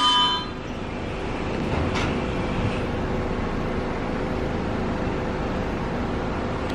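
R62A subway train rolling slowly along the platform at close range with a steady rumble and a faint steady hum. Wheel squeal fades out in the first half-second, and there is a brief sharp noise about two seconds in.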